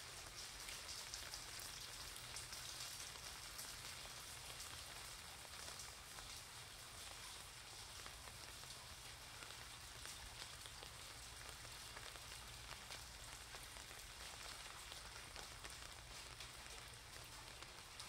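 Steady rain, individual drops ticking on an umbrella and on the wet pavement, over a faint low hum.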